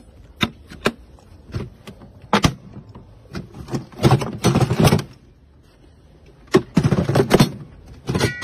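Hard plastic Milwaukee toolbox being opened and rummaged through by hand. First come sharp separate plastic clicks and knocks, then two spells of clattering about a second long as the tool cases and tools inside are shifted around.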